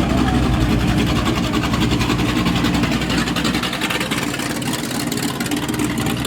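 Car engine running at idle, with a steady low exhaust note.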